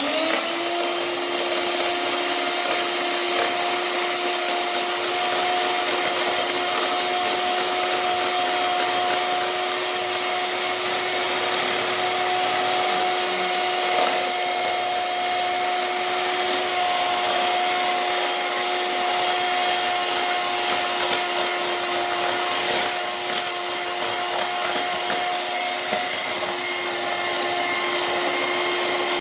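Electric hand mixer running steadily at one speed, its beaters whisking eggs and sugar in a bowl. The motor switches on with a brief rising whine, holds an even hum, then cuts off suddenly.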